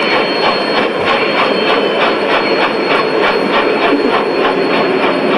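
A model steam locomotive running around the layout track, making a rapid, even clicking about five times a second over a thin, steady high whine.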